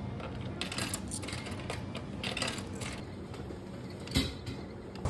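Coins dropping into the coin slot of a convenience-store multifunction copier, then the copier's mechanism clicking and whirring as printed sheets feed out into the tray, with a sharper clack about four seconds in.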